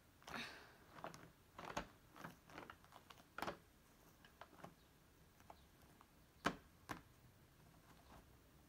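Faint pencil on paper over a desk: scattered short scratches and taps from writing, with the loudest sharp tap about six and a half seconds in.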